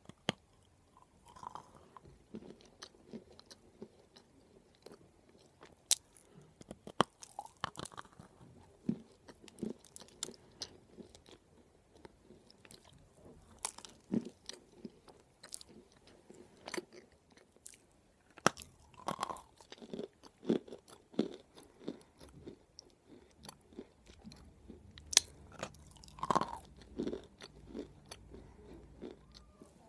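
Close-up biting and chewing of a chunk of white edible clay: irregular sharp crunches and clicks from the mouth, some close together, others seconds apart.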